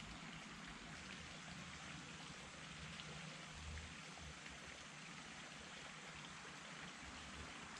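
Faint, steady hiss of outdoor background noise with no distinct events.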